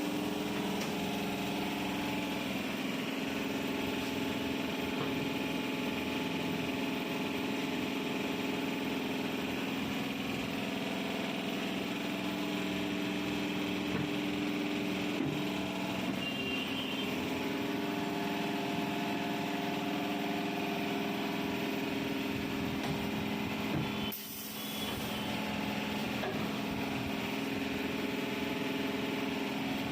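A motor running steadily with an even hum, briefly dropping away about 24 seconds in and then carrying on.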